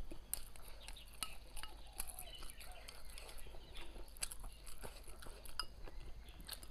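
Wooden chopsticks clicking against a porcelain rice bowl in a run of irregular sharp clicks as rice is scooped up to eat.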